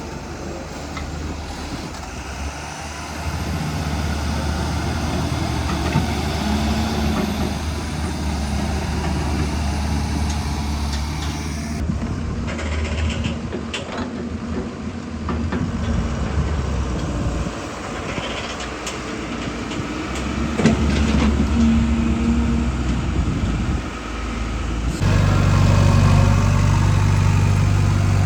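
Heavy diesel engines of a JCB 3DX backhoe loader and a dump truck running, the engine note rising and falling as they work, with a few sharp knocks. The sound changes abruptly twice, near the middle and near the end.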